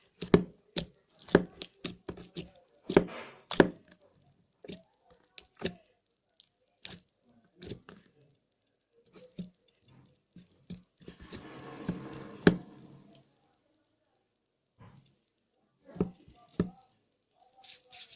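Slime being squeezed and worked by hand, giving irregular sticky clicks and pops, with a longer crackling squish about two-thirds of the way through.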